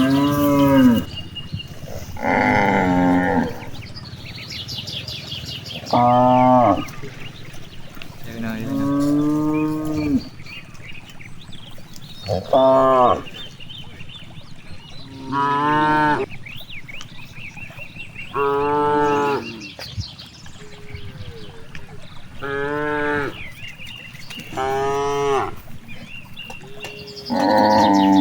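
Cattle mooing over and over: about ten drawn-out calls, each around a second long, coming every two to three seconds.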